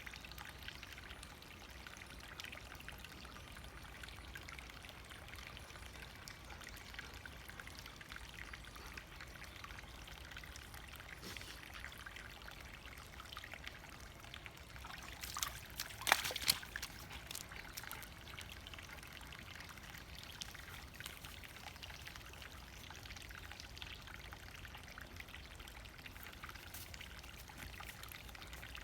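A small brook bubbling and trickling steadily, with a brief louder splash of water about halfway through.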